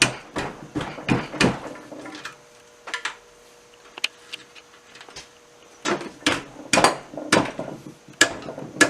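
Hand tools working bolts on a small Briggs and Stratton engine: irregular sharp metallic clicks and knocks, in a cluster at first and again in a quicker run near the end.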